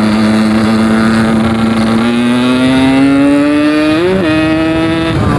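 Yamaha RX-King's 135cc two-stroke single-cylinder engine under way, its note holding steady and then climbing gradually, with a quick blip about four seconds in before it drops away near the end. The rider reckons the carburettor is set too rich, leaving the low revs stuttering.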